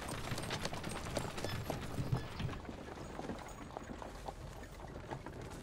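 Horses' hooves clip-clopping on stone paving as a horse-drawn carriage rolls along, a busy run of irregular knocks.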